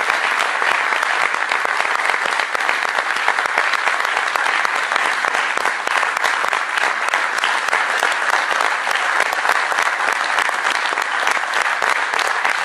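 Audience applauding: dense, steady clapping from a full house.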